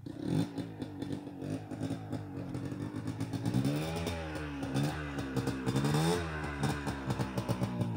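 Dirt bike engine revving up and down over and over, the pitch swelling and dropping several times, loudest in the middle of the stretch, as the bike works its way along a muddy rutted trail.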